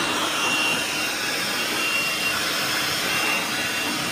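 Hercules 20V cordless compact job site blower running steadily on the highest of its three speeds: a loud rush of air with a thin, steady high motor whine over it.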